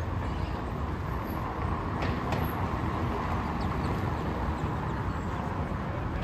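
Street noise dominated by a steady low rumble of passing vehicle traffic.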